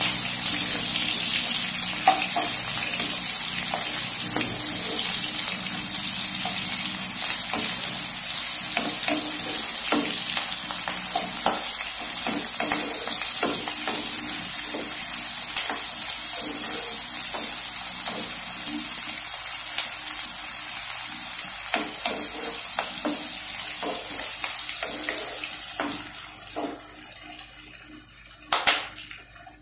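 Sliced onions, green chillies and mint sizzling in hot oil in a kadai: a steady frying hiss with scattered light clicks. The sizzle dies down over the last few seconds as a wooden spatula stirs the pan, with a few sharper clicks.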